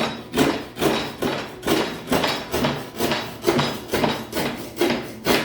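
Handsaw cutting through a board with quick, even back-and-forth strokes, about two a second.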